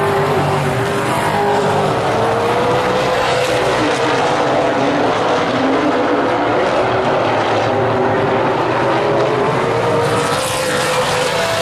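Several super late model stock cars racing on a short oval track, their V8 engines running loud and steady. The overlapping engine notes rise and fall as the cars work through the turns and down the straight.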